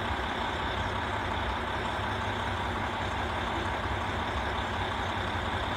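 Diesel engines of JR Hokkaido KiHa 40 railcars idling steadily: an even low rumble with a steady hiss over it.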